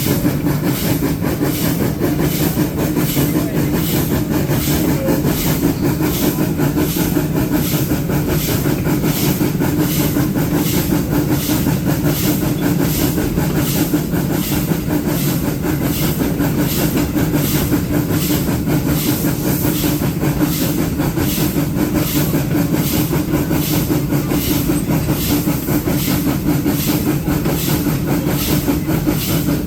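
Arcade & Attica No. 18, a 2-8-0 steam locomotive, working along, its stack exhaust chuffing in a steady, even rhythm over a constant hiss and the rumble of the train.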